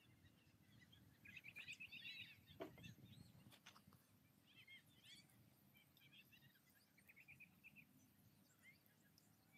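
Near silence with faint bird chirps: several short chirping trills, plus a couple of faint clicks near the middle.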